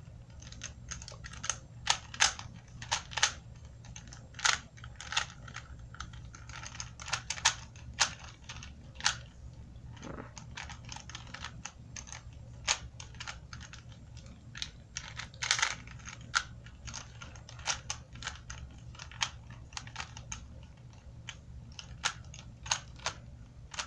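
Rubik's Cube being twisted by hand: quick, irregular plastic clicks and clacks as its layers turn, in bunches with short pauses between.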